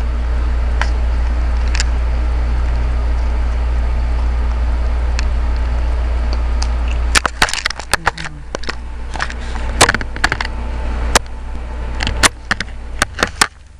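Handling noise: a steady low hum, then from about seven seconds in a run of sharp, irregular clicks and crackles as the camcorder and its plastic packaging are handled.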